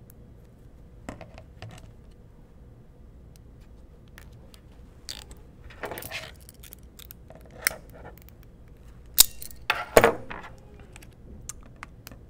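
Hands handling an acrylic 3D-printer bed assembly and a plastic zip tie on a table: scattered light clicks, knocks and brief rustles, with two sharper clacks about nine and ten seconds in.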